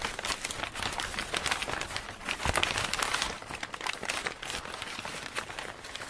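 Dense crackling, crinkling noise full of many small clicks: the sound effect of an animated logo intro.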